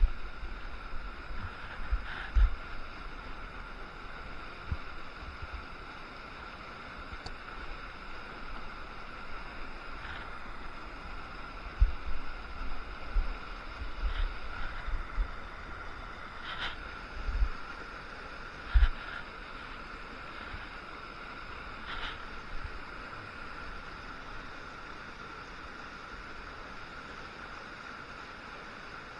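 Creek water rushing over and between rocks in a steady hiss, with occasional low bumps on the microphone and a few faint clicks.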